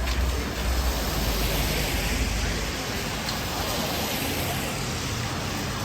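Steady hiss of rain and wet traffic on a city street, with a low vehicle rumble strongest in the first couple of seconds.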